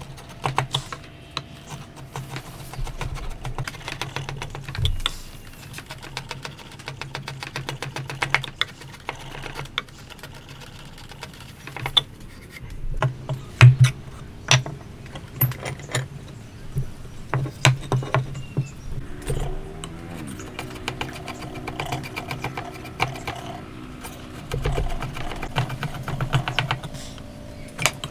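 Steel chisel paring and scraping across hardwood by hand, a run of irregular short cuts, scrapes and taps, with one sharper knock about fourteen seconds in.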